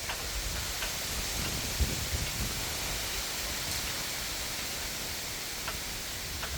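Steady rushing of water, with a few faint short high chirps over it.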